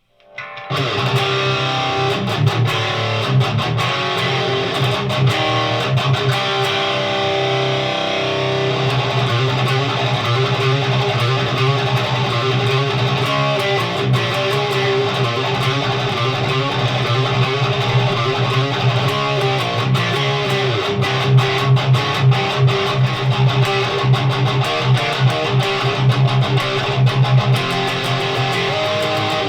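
Electric guitar played through a Noise Pollution Plush Box overdrive pedal into a Randall T2 amplifier on its higher-gain crunch channel, playing a continuous metal riff with many quick picked strokes. It starts about half a second in.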